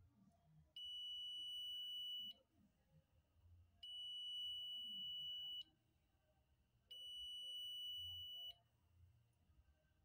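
Digital multimeter's continuity beeper sounding three times, each a steady high-pitched beep about a second and a half long, as the probes make contact on a fridge compressor's terminals during a short-circuit test.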